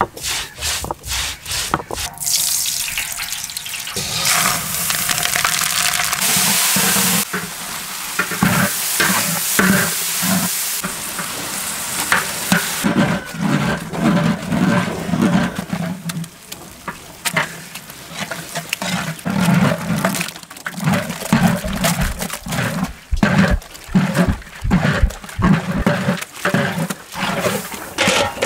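Cooking sounds: a long steady sizzle and stirring of curry, then repeated back-and-forth strokes of a stone roller grinding spice paste on a stone slab.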